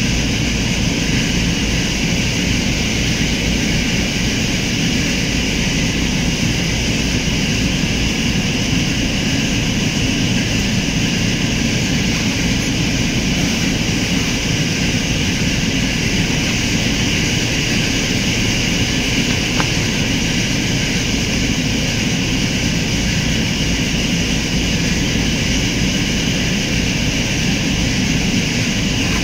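A steady, loud machine drone with a hiss on top.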